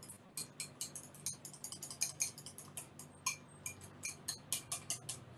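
A small wire whisk beating cream cheese and yogurt in a glass bowl. Its wires clink against the glass in quick, irregular clicks, several a second.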